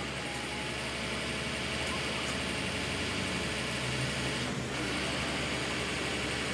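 XCMG truck crane's diesel engine running steadily under a lift, with a steady high hiss over it that drops out briefly about four and a half seconds in.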